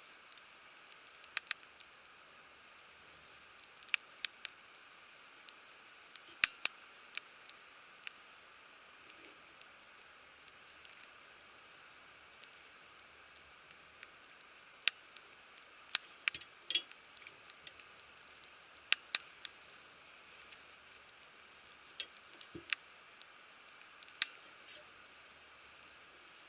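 Wood fire crackling: sharp, irregular pops and snaps over a low steady hiss.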